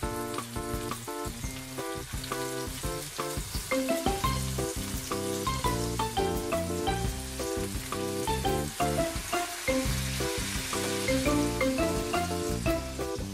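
Meatballs of mixed ground meat sizzling as they brown in sesame oil in a non-stick frying pan, the hiss growing stronger in the latter half. Light background music with a steady beat plays over it.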